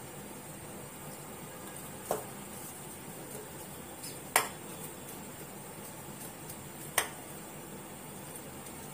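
Three sharp clicks of hands and rings knocking against the bowls while surmai steaks are coated in a semolina-and-flour mix, the second one loudest, over a steady low hiss.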